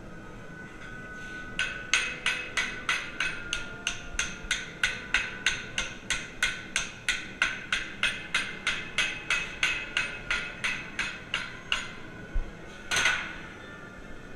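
Steady rhythmic hand-hammer blows on the steel of a putter being forged, about three ringing strikes a second. About a second and a half in they begin, and they stop near twelve seconds. One louder, longer ringing blow follows shortly after.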